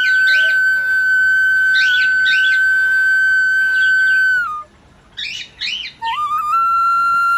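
Background flute music holding long sustained notes, with short clusters of bird chirps over it; the music breaks off about four and a half seconds in, a burst of chirps fills the gap, and the flute comes back near the end.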